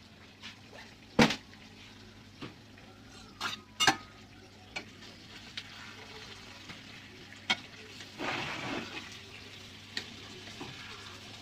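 Chicken sizzling in a pan on a low flame, with sharp clinks of a utensil against the pan about a second in, twice near four seconds and a few times later. A louder rush of sizzle comes with a stir around eight seconds.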